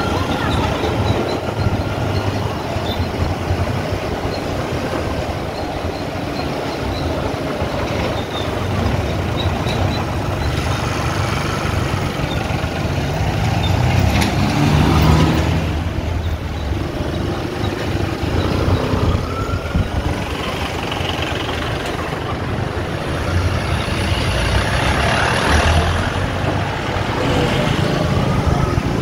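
A motorcycle engine running at low road speed, a steady low drone with road noise over it, briefly louder about halfway through.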